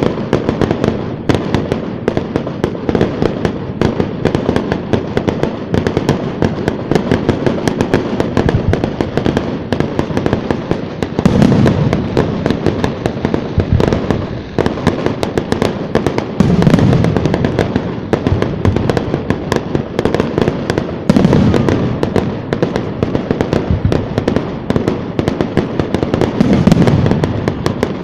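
Aerial fireworks crackling and popping densely and continuously, with heavier booming bursts about every five seconds.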